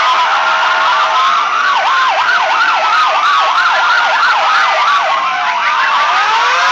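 Several sirens sounding at once, a fast yelp rising and falling about four times a second that gives way to slower wailing sweeps near the end, over steady street noise.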